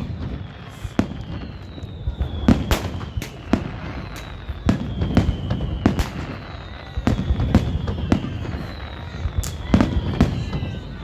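Aerial fireworks display: shells bursting in a fast, uneven series of sharp bangs, often about two a second, with long whistles that slide down in pitch between and over the bangs.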